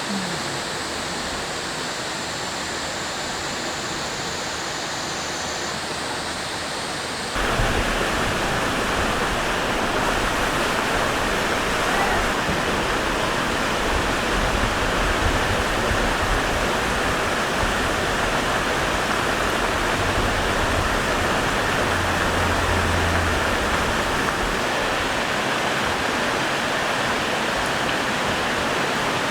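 Rushing mountain stream, a steady even rush of water that jumps louder about seven seconds in.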